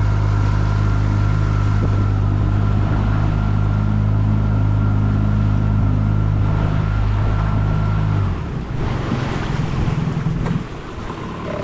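Small boat outboard motor running at a steady low speed, then shut off about eight seconds in, leaving water washing and splashing around the hull.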